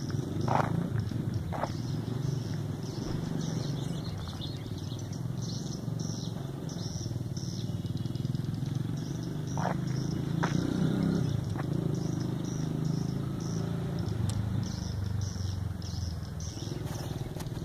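Swiftlets twittering: quick, high chirps repeated all through, over a steady low rumble.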